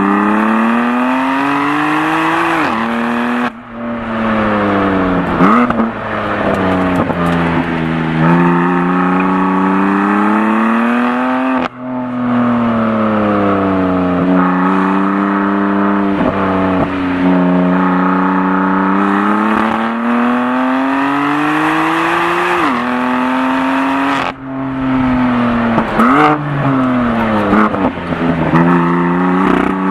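2018 BMW M4 Competition's twin-turbo inline-six running under hard driving, its pitch climbing through the revs, cutting off briefly at gear changes about three times, then falling as it slows, with exhaust crackles on lifting off.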